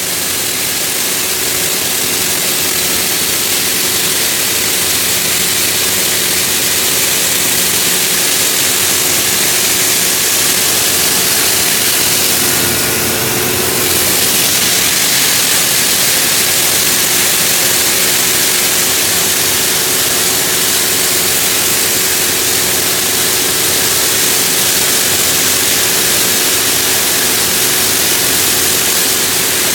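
A high-pressure water-blasting and grinder-head rig removing pavement markings: a loud, steady hiss of water jets over the steady hum of the engine and pump.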